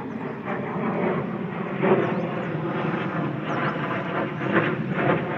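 Steady drone of heavy diesel machinery working in the rail yard, an even engine noise with no distinct knocks or bangs.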